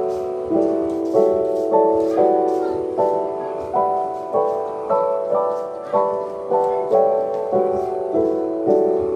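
Background piano music: a slow melody of struck notes, about two a second, each fading before the next.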